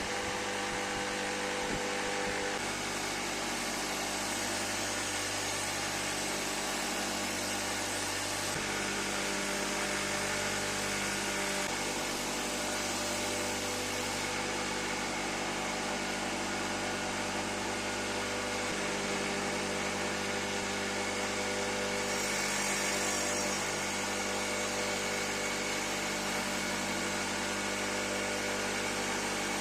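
Electric power tool running steadily with a constant motor hum.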